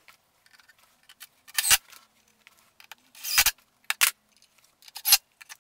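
Tools being handled and set down on a wooden workbench: four or five short, sharp clacks and knocks about a second apart, with quiet between them.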